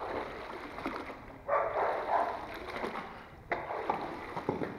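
Water splashing and streaming off a heavy, mud-caked object as it is hauled up out of canal water on a magnet fishing rope, with a few sharp knocks in the last second or so.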